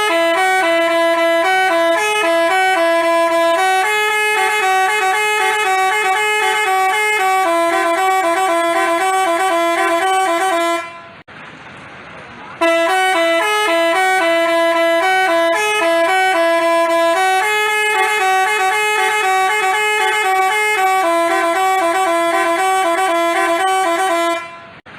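Basuri telolet multi-tone bus horn playing a tune, several horn notes sounding together and changing step by step. The tune runs about eleven seconds, breaks off briefly, then plays through again, stopping just before the end.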